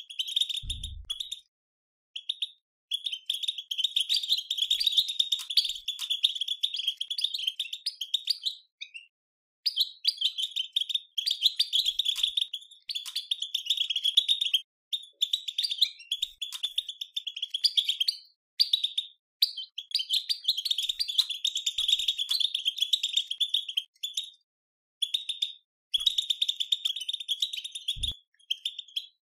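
European goldfinch twittering 'batbata' chatter: a rapid, unbroken stream of high chirps in phrases of a few seconds with brief pauses between them. This is the excited twitter that keepers use to stir goldfinches into song. Two short low thumps come about a second in and near the end.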